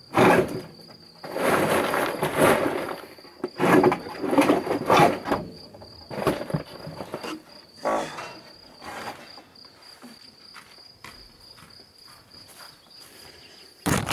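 Wooden pallets being carried and set down: bursts of knocking and scraping every second or two, fading out in the last few seconds. A cricket trills steadily underneath.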